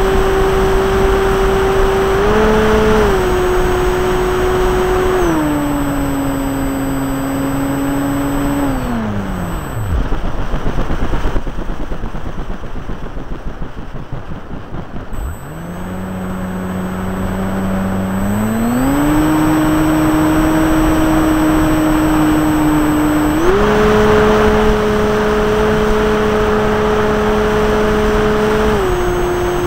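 Brushless outrunner electric motor and propeller of an RC Cessna 182, recorded onboard, whining at steady pitches that step up and down with the throttle. About nine seconds in, the motor winds down and stops, leaving only wind noise for about five seconds. It then spools back up in steps to a higher whine.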